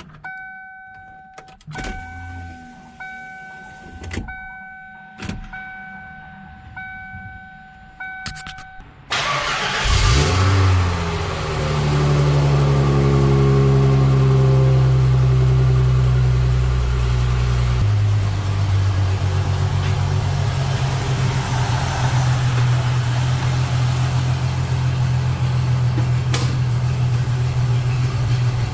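A car's warning chime dings about once a second with a few clicks, then the 1993 Ford Thunderbird Super Coupe's supercharged 3.8-litre V6 cranks briefly, catches and flares up on a cold start. It settles into a steady fast idle, then drops to a lower, even idle about two thirds of the way through.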